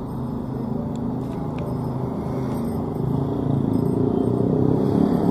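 Street traffic: cars and motorbikes passing on a city road, a steady engine and tyre rumble that gets louder toward the end.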